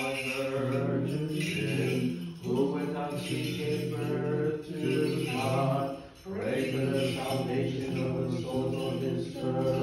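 Men's voices chanting Orthodox memorial-service hymns in long, sustained phrases, with short breaks about two and a half and six seconds in.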